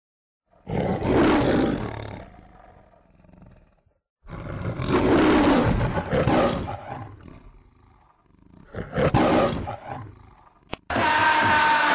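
A lion roaring three times, each roar swelling loud and then dying away: the roar of the MGM film-studio logo. About a second before the end it cuts abruptly to a crowd chanting over music.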